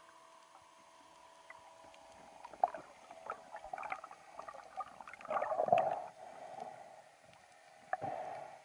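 Underwater sound on a diver's camera: clicks and knocks of the spearfisher's gear and water movement, with a louder rush about five seconds in and a sharp knock near the end.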